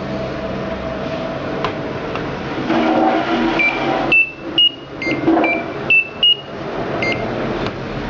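Washing machine control panel beeping, about eight short electronic beeps at a few different pitches in the middle of the stretch, with four much louder than the rest. These are the key-press tones of a freshly powered Samsung control board answering its buttons during a bench test.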